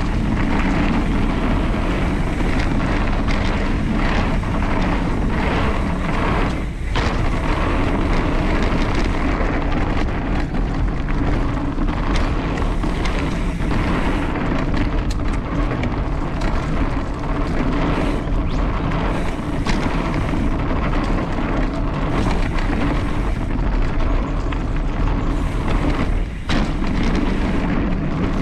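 Steady wind rumble buffeting the camera microphone on a fast mountain-bike descent, with scattered knocks and rattles from the bike riding over rough trail.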